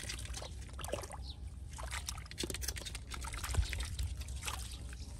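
Hands sloshing and splashing through shallow muddy water and mud, groping for fish, in a run of irregular small splashes and drips.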